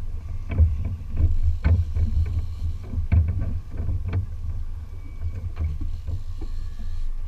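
Boat at sea: a lumpy low rumble of wind buffeting the microphone, with irregular knocks and slaps of water against the hull.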